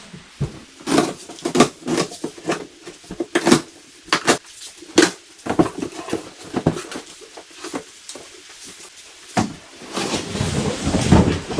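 Cardboard bike box being opened and handled: a string of irregular crackles, knocks and clatters of cardboard and packaging, turning to a denser rustling rush near the end.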